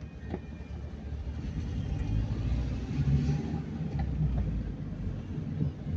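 Car engine and tyre noise heard from inside the cabin while driving slowly: a low, steady rumble that grows a little louder about two seconds in.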